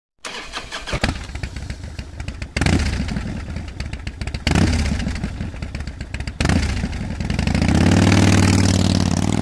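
Motorcycle engine running with a rapid, uneven beat. It gets suddenly louder in steps, then revs up and holds high near the end.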